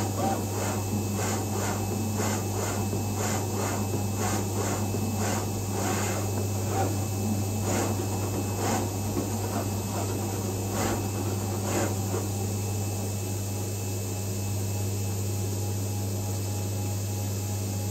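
Vulcan FC500 flatbed cutting plotter cutting and creasing a sheet of card: a steady machine hum with a run of short clicks and scraping strokes from the moving tool head. The strokes come thick and fast at first and thin out after about twelve seconds.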